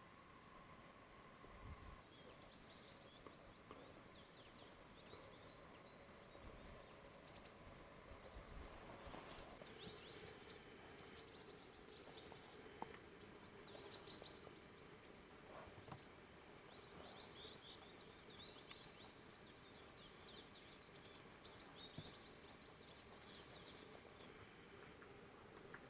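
Faint, high chirping calls of small forest birds, many short notes in scattered clusters over a quiet background hiss.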